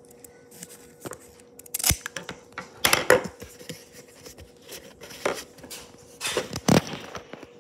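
Handling noises at a tabletop: a few sharp knocks and short rustling scrapes spaced a second or so apart, over a faint steady hum.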